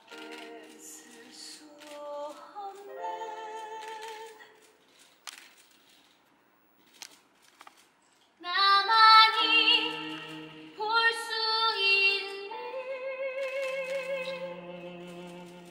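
Female voice singing a slow musical-theatre ballad in long held notes with vibrato. The singing breaks off for a few seconds in the middle, then comes back louder, with a low steady note held beneath it at times.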